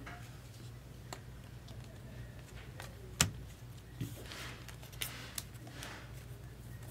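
Trading cards handled slowly by hand: soft swishes of card sliding against card and a few light clicks and taps, with one sharper click about three seconds in, over a faint steady low hum.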